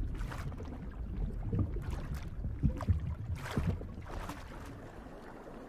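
Underwater water ambience: a low steady rumble with soft swishes of moving water every second or so, fading toward the end.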